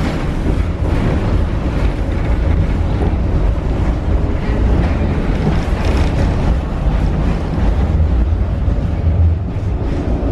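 An old tram running on its rails, heard from inside the car: a steady low rumble of the running gear and wheels.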